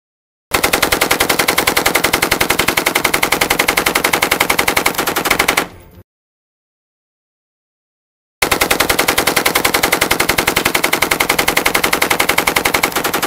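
M249 SAW light machine gun firing two long full-auto bursts of about five seconds each, shots coming at a fast, even rate, with silence between the bursts. Each burst stops abruptly with a short, faint tail.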